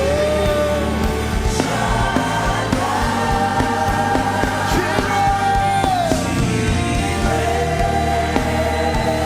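Live gospel worship music: long, held sung notes that glide from pitch to pitch over a band with steady bass notes and drum hits.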